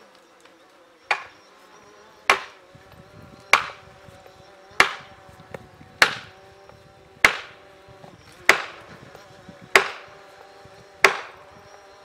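Felling axe driving a felling wedge into the back cut of a tree: nine sharp, evenly spaced blows, about one every second and a quarter.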